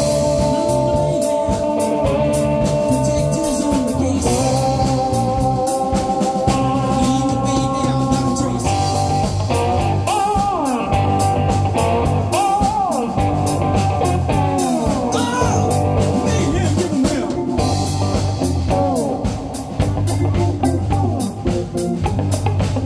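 Live blues-rock band: an amplified cigar box guitar played with a slide, its held notes gliding up and down in pitch, over a steady drum beat and a bass guitar line.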